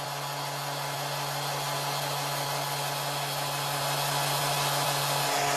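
Electric orbital sander running steadily at full speed: a motor hum under a broad rush of air, slowly growing a little louder, with a higher steady tone joining near the end. Its sound is being checked after a drop test, since unusual changes in tone and pitch would point to damage or an operational problem in the tool.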